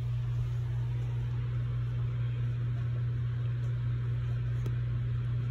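A steady low hum, even in level and pitch, with a few faint clicks near the end.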